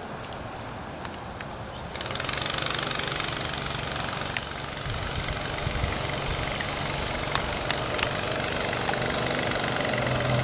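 Small gas engine of a ride-on vehicle running steadily, throttled up about two seconds in and then held, with a few sharp clicks. It pulls with almost no power, probably because its clutch is smoking.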